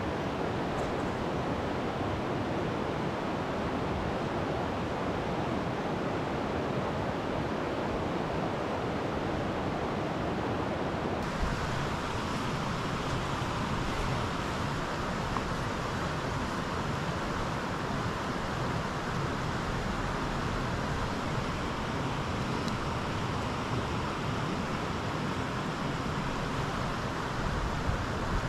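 Steady rush of a shallow, rocky creek flowing; about eleven seconds in the rushing shifts a little in tone and carries on.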